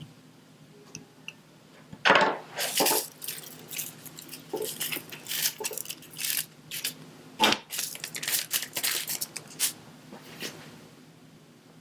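Diamond painting materials being handled: a quick, uneven run of sharp clicks, taps and crackles that starts about two seconds in and dies away near the end.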